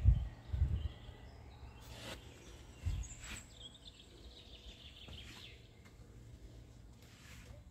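Wind buffeting the microphone in short low gusts in the first second and again near three seconds in, with a bird calling faintly in a falling, chattering phrase around the middle.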